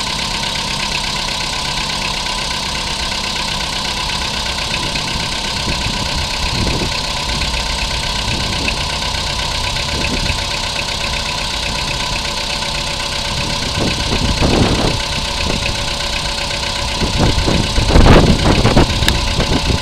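Volkswagen Polo Sedan (2011) petrol engine idling steadily, with the metallic knock that is being recorded as a fault; a steady whine runs alongside. Louder irregular knocks and rustles come twice in the second half.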